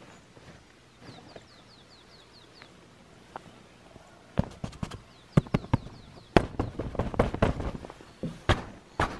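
A small bird calling in quick runs of short, falling chirps. From about four seconds in, a string of irregular, sharp knocks and clacks starts and becomes the loudest sound.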